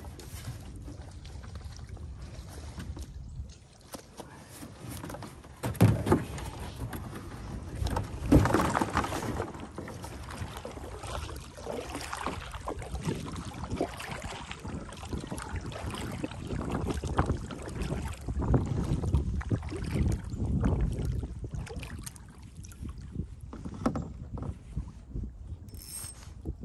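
A plastic kayak being launched off a sand bank, with the hull scraping and two loud knocks about six and eight seconds in, then a steady run of paddle strokes dipping and splashing in the water.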